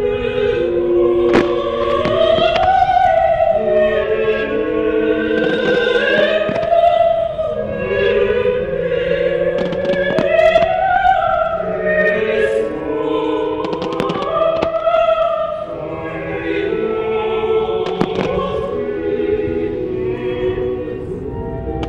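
Operatic choral music with slow sung phrases that rise and fall, with sharp firework bangs cracking over it every few seconds.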